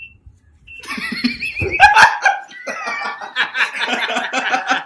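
Men laughing hard, breaking out about a second in and going on in quick bursts.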